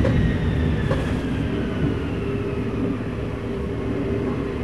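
Jet airliner engine blast running at high power: a heavy, steady roar of rushing air. A faint whine falls slowly in pitch throughout.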